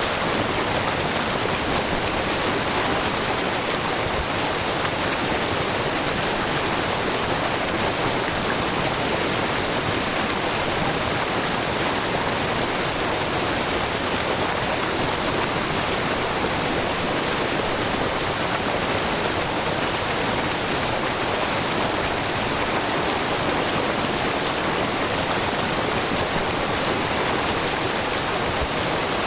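Shiraito Falls, a low, wide curtain waterfall fed by many streams of spring water, splashing steadily together with a babbling brook. The rush is even and unbroken.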